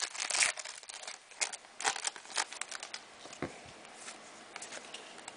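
Trading cards and their pack wrapper being handled: crinkling and sliding, dense at first, then separate short swishes and clicks as cards are flipped through.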